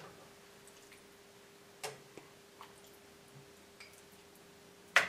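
Raw bacon pieces being dropped into a nonstick skillet, giving a few light, sharp slaps about two seconds apart, the last the loudest, over a faint steady hum.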